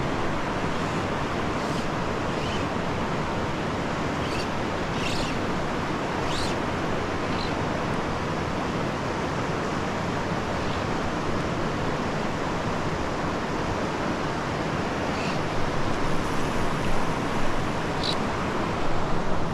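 Mountain stream rushing steadily, an even hiss of moving water, with a few faint short high chirps over it and the noise growing uneven in the last few seconds.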